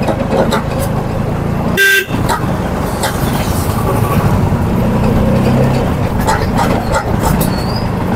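Street traffic with vehicle engines running, and one short vehicle horn toot about two seconds in.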